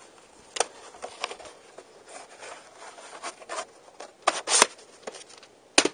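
A plastic VHS cassette being handled and picked up off a carpet: soft rubbing with a scatter of small clicks and knocks, the loudest ones coming in the last couple of seconds.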